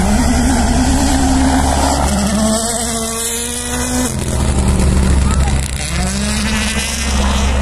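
WRC rally car's turbocharged four-cylinder engine revving hard on a gravel stage, the pitch climbing in the first couple of seconds and then held high. The sound changes abruptly about four seconds in, and the engine note rises again near the end, all over a steady low rumble.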